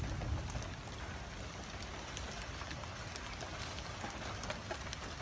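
Light rain falling, with scattered drops ticking, over a steady low rumble.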